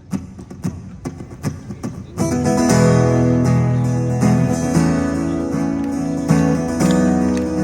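Acoustic guitars playing live: a few light, muted strokes, then about two seconds in, full strummed chords kick in loudly for the song's intro.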